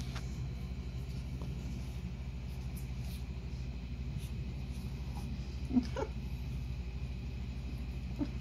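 Pekingese puppy giving a short rising yelp about six seconds in and another brief one near the end, over a steady low hum.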